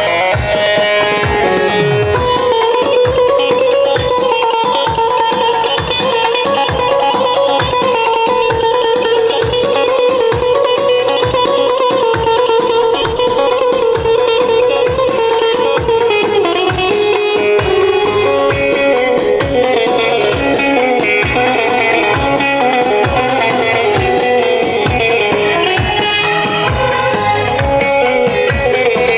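Dance music from a wedding band: a plucked string instrument carries the melody over a steady beat.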